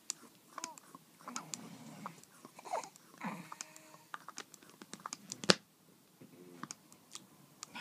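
A baby feeding: irregular wet mouth clicks and smacks, with a few brief squeaky vocal sounds and one sharp, loud click about five and a half seconds in.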